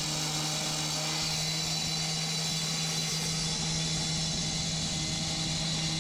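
A machine running steadily at constant speed: an even engine or motor hum with a strong hiss and no changes in pace.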